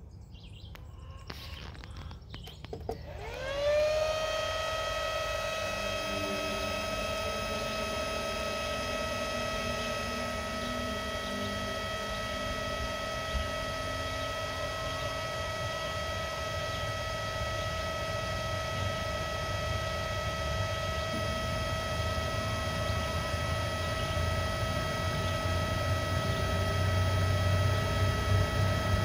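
Electric motor on a variable frequency drive starting up: a whine glides up over about a second and then holds a steady pitch with its overtones, over a low hum that grows slightly louder near the end. The drive's low output voltage is apparently overloading the motor.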